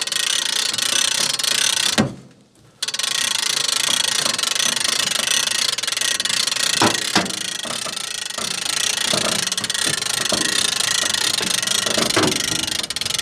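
T-40AM tractor's air-cooled diesel running steadily, with a few metal knocks as the folded wood chipper is handled and latched for transport.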